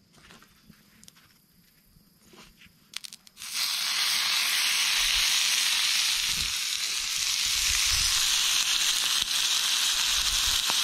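Bacon sizzling steadily in a cast-iron skillet, the frying starting abruptly about a third of the way in after a few faint seconds.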